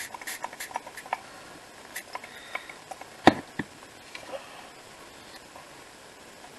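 Hands working at a craft table: light taps, rubs and paper rustles as card and a paint-smeared plastic sheet are handled, with one sharp knock about three seconds in.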